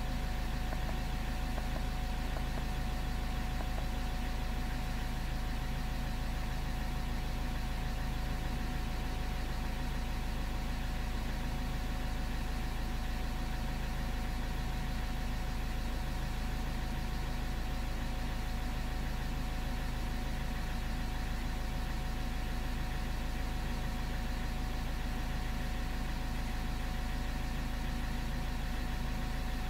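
A car engine idling steadily, an even hum that does not change.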